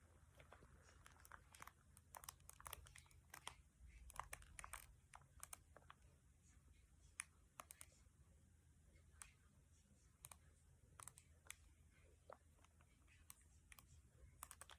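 Faint, irregular little clicks, pops and crackles from a belly recorded close up while it is being massaged, over a low steady hum.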